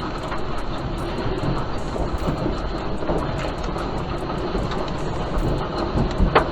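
Steady, heavy rumbling of a strong earthquake in the mountains: the ground shaking and rock and earth sliding, with a few sharper knocks near the end.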